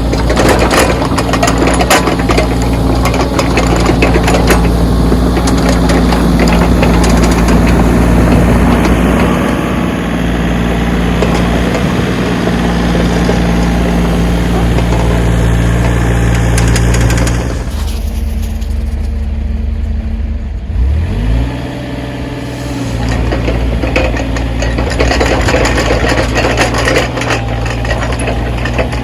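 Backhoe engine running steadily with clanking and scraping on top. About two-thirds of the way through the clatter drops away and the engine note rises as it revs, then the full working sound returns.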